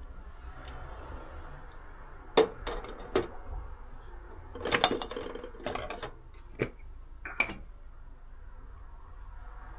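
Small skincare bottles and caps being handled and set down among toiletries on a metal wire shelf rack: a string of sharp clicks, clinks and knocks, loudest about two and a half seconds in, with a denser clatter around the middle.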